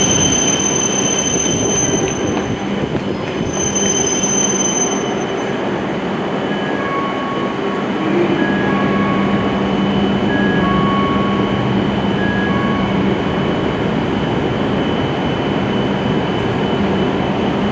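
E7 series Shinkansen train running slowly into the platform as it comes in to stop: a steady rumble with thin high whines, and brief squeals repeating through the middle.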